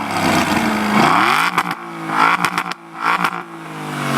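Aston Martin V8 Vantage's V8 engine revving. It runs steadily at first, climbs sharply in pitch about a second in, falls away with a few sharp cracks and a brief lull, then builds again near the end.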